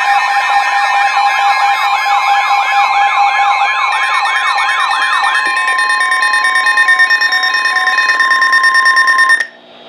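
Several electronic siren and alarm tones sounding together. A fast yelp-type siren sweeps up and down about two to three times a second for the first five seconds or so over steady tones, then steady tones with repeating beeps carry on. Everything cuts off suddenly near the end.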